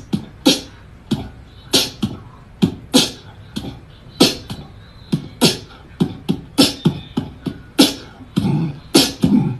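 Beatbox rhythm: quick, uneven percussive hits, low kick-like thumps and sharp hi-hat-like clicks, two or three a second.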